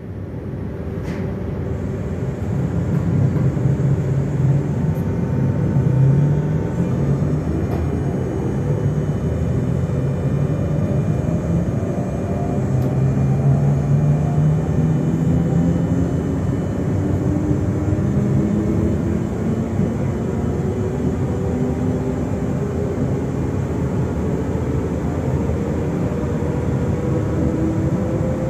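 SNCF Z2N double-deck electric multiple unit Z 20831 (Z 20500 series) running under power. Its traction motors give several whining tones that rise slowly in pitch, one set after another, over a steady rumble as the train gathers speed.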